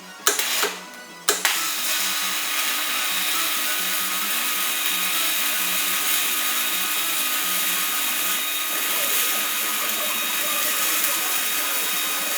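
Electric arc welding: two brief arc strikes, then a steady crackling arc held for about eleven seconds that stops abruptly near the end as a weld bead is run.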